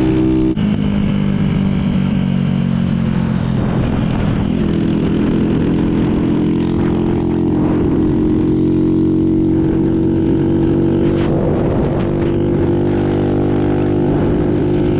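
Honda C90's small single-cylinder four-stroke engine running hard at steady cruising speed, with wind noise. The engine's pitch drops about half a second in and settles a little higher after about four seconds. The rider finds the cam chain getting louder and puts it down to a stretched chain after riding flat out.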